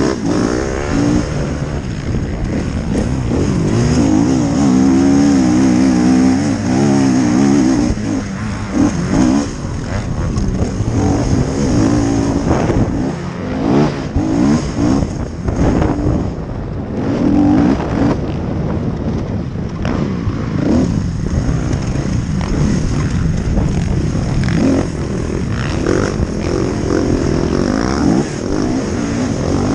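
Motocross dirt bike engine, heard from the rider's helmet, revving up and down again and again with the throttle through the track's turns and jumps, over a steady rush of wind on the microphone.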